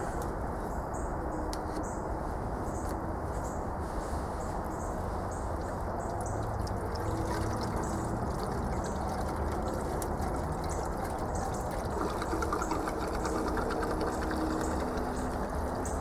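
Kerosene pouring steadily from the spout of a plastic jerry can into an upright PVC pipe, a continuous trickling flow of liquid.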